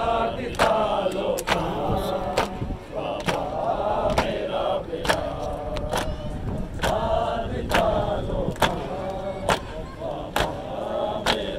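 Group of men chanting a mourning lament together, with sharp chest-beats (matam) struck in unison about once a second to keep time.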